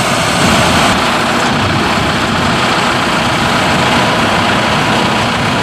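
John Deere 5100M tractor's four-cylinder turbo diesel engine running steadily.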